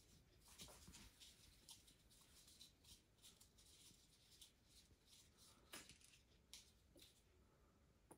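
Near silence with faint small clicks and scrapes as a plastic syringe and its tube are handled and pulled off the drain port of a Pinion bicycle gearbox.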